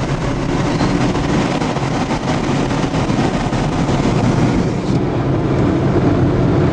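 Steady noise inside a moving storm-chase vehicle: engine, road and wind noise, with rain pelting the windshield and body.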